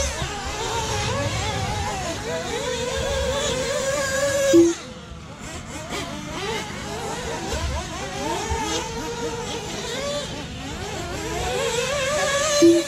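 Radio-controlled racing buggies' motors whining and changing pitch as the cars race round the dirt track, swelling as cars pass close. Two short low beeps sound, one about four and a half seconds in and one near the end.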